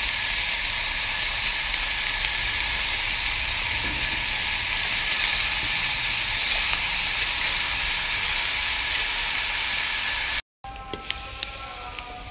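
Rice frying in a hot pan with a steady sizzle as it is stirred and tossed. About ten seconds in the sizzle cuts off abruptly, and a quieter stretch with a few sharp clicks and steady tones follows.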